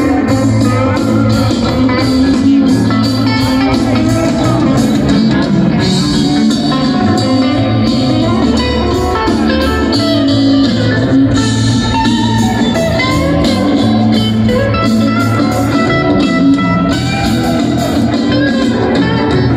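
Live rock band playing through a stadium PA, heard from the crowd, with an electric guitar to the fore.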